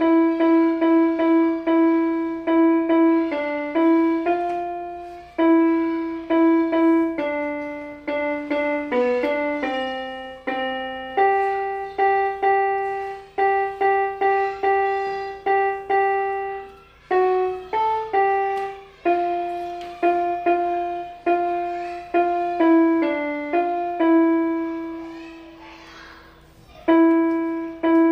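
Small electronic keyboard playing a simple melody in a piano voice, one note at a time, each note struck and fading, with a brief pause near the end.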